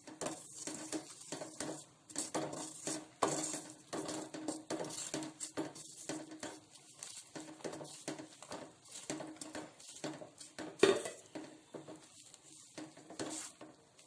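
Wooden spatula scraping and knocking against a metal kadai as ragi flour is stirred into melted jaggery syrup. The strokes come in an irregular run, with one louder knock about eleven seconds in.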